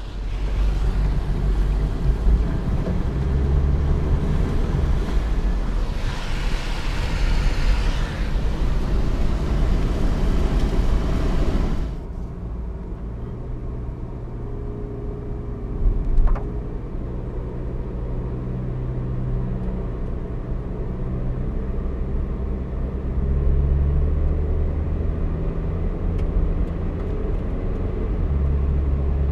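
Car driving on an open road: rushing wind and road noise at first, then about twelve seconds in a sudden change to a quieter, steady engine and tyre hum inside the car. There is one brief knock a few seconds after the change.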